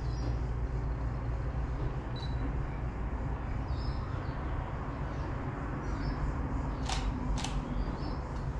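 Two camera shutter clicks about half a second apart, near the end, as a photo is taken, over a steady low rumble.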